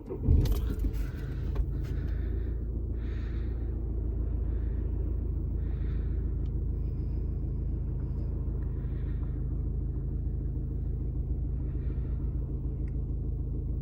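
Peugeot 508's engine starting, with a short rise in level as it catches, then idling steadily.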